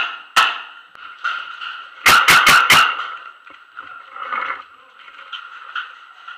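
Paintball markers firing: single shots near the start, then a rapid string of about five shots about two seconds in.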